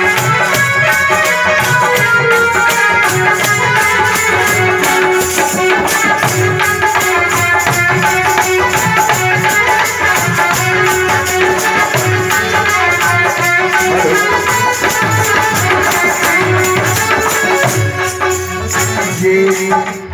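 Harmonium playing a held, reedy melody, with fast, steady rattle-like percussion and low drum beats underneath: an instrumental passage of Indian folk devotional music.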